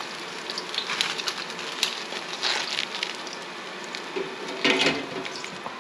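Hot oil in an electric deep fryer hissing and crackling around a panko-breaded salmon fillet as it is handled with metal tongs, with a louder clatter near the end.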